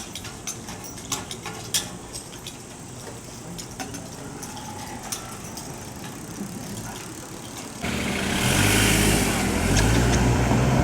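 Street background with scattered faint clicks, then about eight seconds in a motor vehicle's engine comes in suddenly and loud, rising in pitch as it accelerates.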